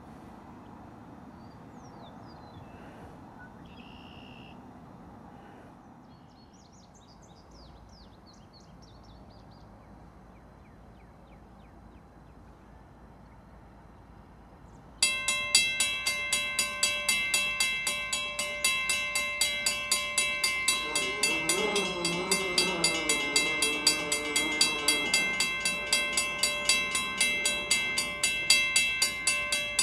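Faint outdoor background with a few quick bird chirps. About halfway through, background music with a steady beat cuts in abruptly and takes over.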